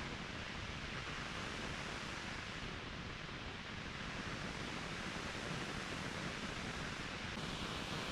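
Steady rushing roar of a mountain waterfall, an even hiss of falling water with no change.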